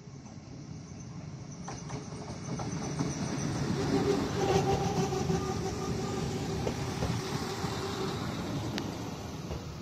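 PESA SA134 diesel railbus passing close by at low speed. Its diesel engine hum grows louder as it approaches and peaks about four to five seconds in, with sharp clicks from the wheels running over the rails.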